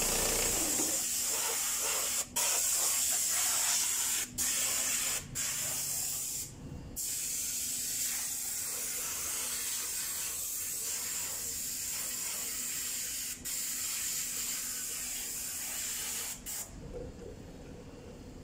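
A steady spray hiss, cut off briefly about six times, as if a trigger were released, and stopping just before the end.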